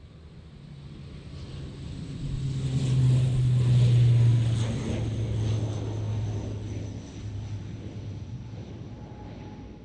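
ATR 72 twin-turboprop airliner at takeoff power, climbing out past close by. A deep propeller drone swells to its loudest about three to four seconds in, then drops slightly in pitch and fades as the aircraft passes and climbs away. A thin high whine slides slowly downward throughout.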